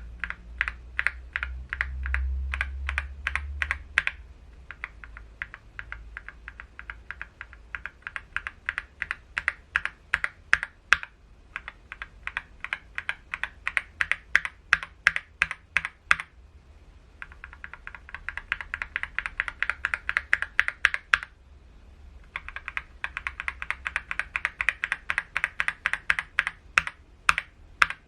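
Typing on a mechanical keyboard fitted with Akko linear switches, a rapid run of keystroke clacks. The typing pauses briefly about two-thirds of the way through and again a few seconds later.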